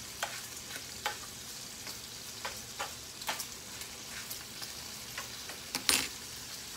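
Bacon frying in hot grease in a pot: a steady sizzle with scattered sharp crackles and pops, and one louder burst about six seconds in.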